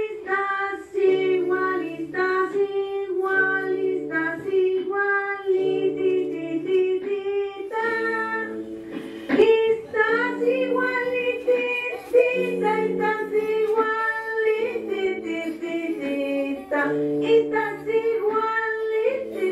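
A song: a high voice singing a melody in held notes over a lower sustained accompaniment.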